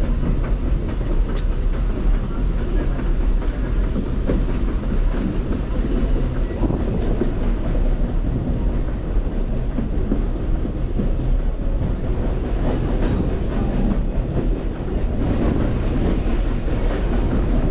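Walt Disney World Railroad's narrow-gauge steam train running along the track, heard from on board: a steady rumble of the wheels on the rails.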